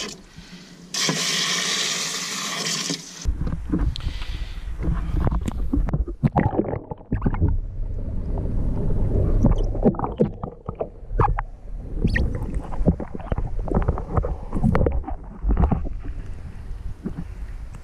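Garden hose spraying water into a boat's anchor locker, a loud steady hiss for about two seconds. After that, low rumbling and irregular knocks of camera handling fill the rest.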